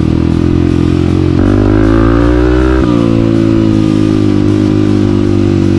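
Honda CRF250F's single-cylinder four-stroke engine running on the move, steady at first, then climbing in pitch under throttle from about a second and a half in before dropping back abruptly near three seconds and settling steady again.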